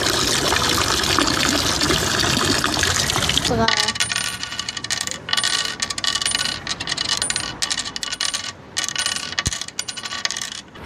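A dense rushing noise for about three and a half seconds, ending in a short falling sweep. Then comes an irregular run of sharp clicks with a brief ringing tail, like small hard objects clinking.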